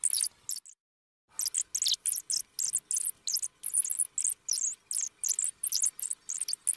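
A Minnie Mouse voice played back at double speed: rapid, very high-pitched squeaky chattering syllables in quick bursts, with a short pause about a second in.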